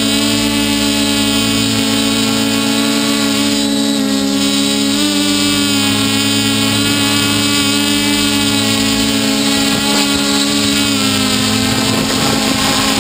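Hexacopter's six electric motors and propellers running with a steady, pitched drone, heard from the craft's own camera; the pitch begins to sink near the end as it comes down toward the ground.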